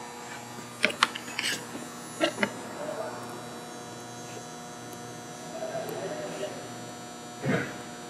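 A steady low hum, with several sharp clicks in the first two and a half seconds from handling the scope's test leads and connectors.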